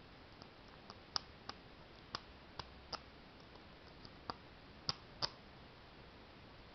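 Steel hook pick and tension wrench working the pin tumblers of a brass ISEO euro cylinder lock: about a dozen light, irregular metallic clicks as the pick lifts the pins, stopping a little after five seconds in.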